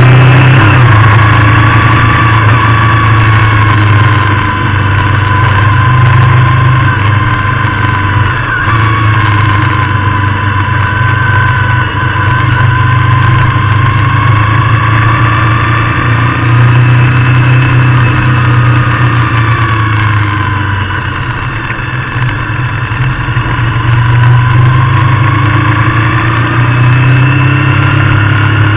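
Harley-Davidson Street Bob's V-twin engine running under way, its note slowly rising and falling with the throttle through the bends. The sound dips a little about three quarters of the way through.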